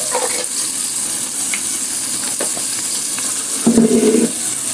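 Chicken pieces frying in hot oil, a steady sizzle with small crackles, the chicken crisping up. About three-quarters of the way through a short low steady tone sounds over it for about half a second.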